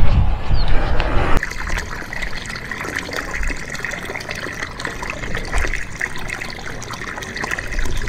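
A low rumble for the first second or so, then water pouring steadily from a small concrete channel outlet, splashing over stones into a shallow ditch.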